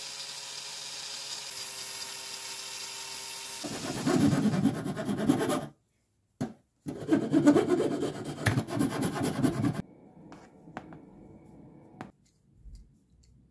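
An angle grinder's cut-off disc spinning with a steady whine, then grinding through a steel bolt to shorten it. After a break, a hand file rasps back and forth on the cut bolt end, followed by light metal clicks as the nut is worked off the bolt to clean up the threads.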